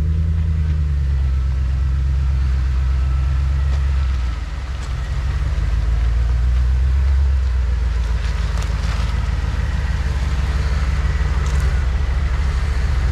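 Off-road vehicle's engine running with a steady low rumble that dips briefly about four seconds in, with a few knocks later as it works over rough ground.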